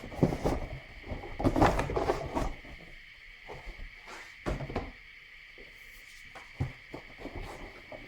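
Cardboard game boxes and components being handled and rummaged through: a busy stretch of rustling and knocks in the first couple of seconds, then a few scattered taps, over a faint steady high-pitched hum.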